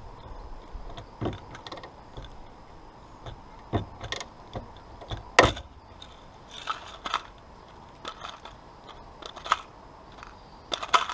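Irregular clicks and knocks of hand tools working rivets into a soft-top roof frame, with one sharp, loud snap about five and a half seconds in.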